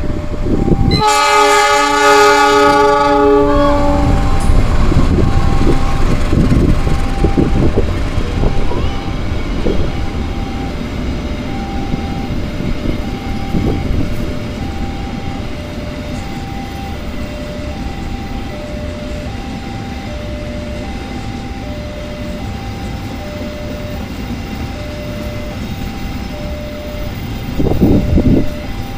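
Diesel locomotive sounding one horn blast of about three seconds, then the freight train running past: locomotive and a long string of tank and flat wagons rumbling and clacking over the rails, loudest in the first ten seconds and easing off after that, with a brief louder surge near the end. Throughout, a level-crossing warning alarm sounds two alternating chime tones.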